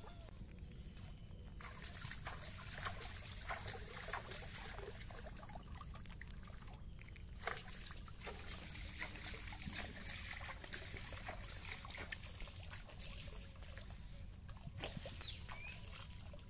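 Wet crackling and patter of a heap of freshly caught small fish flapping and slithering in a mesh net as hands rummage through them; it grows busier about two seconds in.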